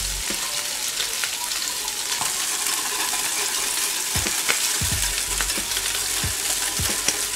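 Salmon fillets sizzling steadily in butter in a frying pan, with a wire whisk clicking against a small saucepan as a cream-and-butter sauce is whisked; a few duller knocks about four to five seconds in.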